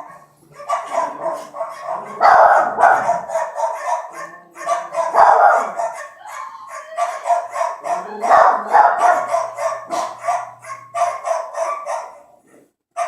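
Dog barking sound effect played back: rapid, overlapping barks, loudest in clusters about two, five and eight seconds in, cutting off briefly near the end.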